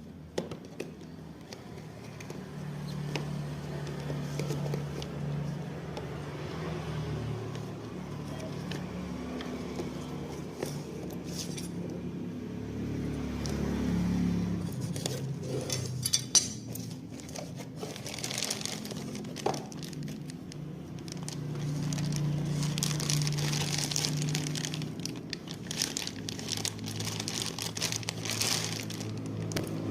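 Packaging being handled and unwrapped: plastic crinkling and rustling, with scattered sharp clicks and knocks and a low steady hum underneath.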